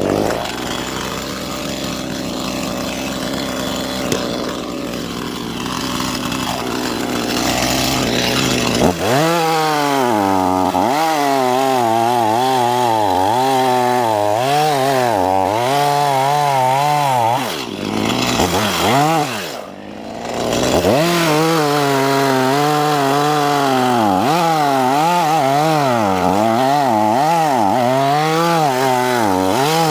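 Stihl chainsaw running loud and cutting wood. About nine seconds in, its engine note starts rising and falling continually as the load on the chain changes. Near the middle the engine slows briefly, then revs back up.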